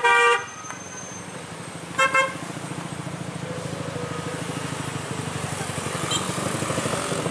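Vehicle horn sounding one short blast at the start, then two quick toots about two seconds in, over the steady running of car and motorcycle engines that grows slightly louder toward the end as traffic comes through a hairpin bend.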